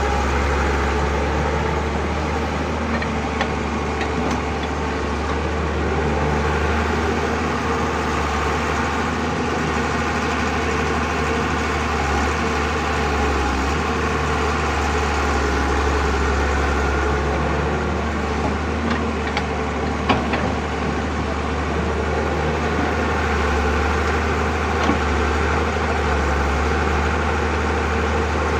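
Engines of an excavator and dump truck running steadily, with a deep even drone. Two brief sharp knocks stand out, about two-thirds of the way in and near the end.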